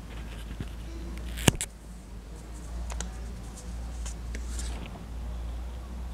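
Handling noise from a handheld phone camera over a sheet of drawing paper: one sharp click about a second and a half in, a smaller click around three seconds, and faint rustles over a steady low hum.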